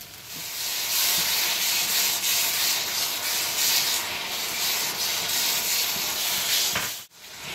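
Hot masala gravy sizzling in a nonstick pan as whisked curd is stirred in, with the slotted spatula rubbing and scraping through the thick gravy in repeated strokes. The sound starts about half a second in and stops abruptly near the end.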